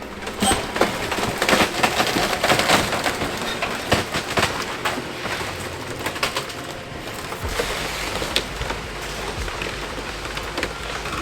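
Wooden house debris cracking and splintering as an excavator crushes it: a dense, irregular run of snaps and crunches, with a low rumble underneath that grows about seven and a half seconds in.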